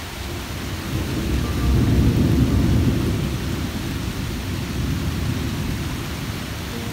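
A long roll of thunder that swells about a second in, is loudest around two to three seconds, then slowly dies away, over a steady hiss of rain.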